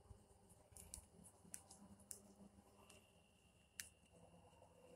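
Near silence, with a few faint scattered ticks and clicks and a faint steady high tone from about three seconds in.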